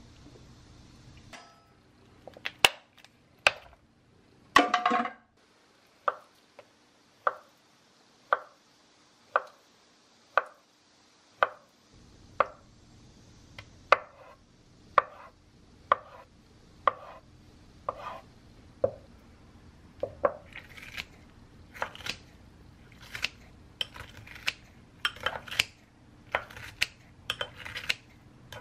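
Kitchen knife slicing a block of tofu on a wooden cutting board, the blade knocking the board about once a second. Near the end come quicker, brighter clinks of a utensil mixing kimchi in a ceramic bowl.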